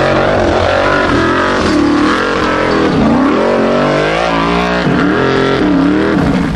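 Unlimited-class Formula Offroad buggy's engine revving hard as it climbs a steep dirt bank with its wheels spinning and throwing dirt. The pitch swings up and down several times and drops away near the end as the buggy tips over.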